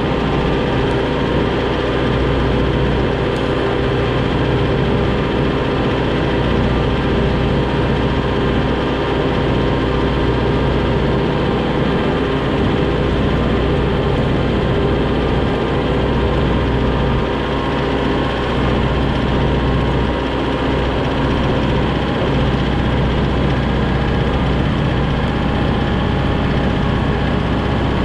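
Kubota M6060 tractor's four-cylinder diesel engine running steadily under way, heard close from the operator's seat.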